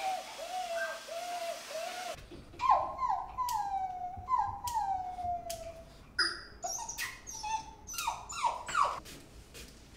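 Boerboel puppy whimpering in quick rising-and-falling cries, followed by long falling howl-like cries. Sharp clicks of nail clippers on the puppy's nails come through the second half.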